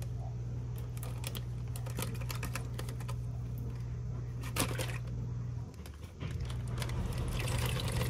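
Steady low hum of a running dishwasher, which cuts out briefly about six seconds in and then resumes. Over it come scattered small clicks and taps as a bottle of Worcestershire sauce is handled.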